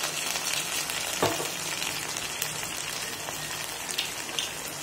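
Chopped onion, ginger, garlic and green chilli sizzling steadily in hot oil in a kadai, with soy sauce, vinegar and chilli tomato sauce just added. One short knock about a second in.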